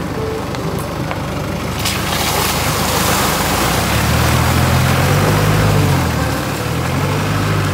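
Jeep Wrangler driving through muddy puddles, its tyres churning and splashing as it passes. The engine note grows louder and rises in pitch about halfway through as it accelerates.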